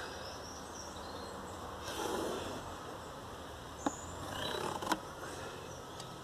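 Handling sounds of a cardboard template being lined up against a steel pellet catcher: soft rustles about two seconds in and again past four seconds, and two light sharp clicks about a second apart, over a faint steady background.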